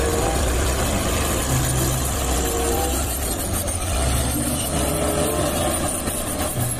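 Caterpillar crawler bulldozer's diesel engine running steadily.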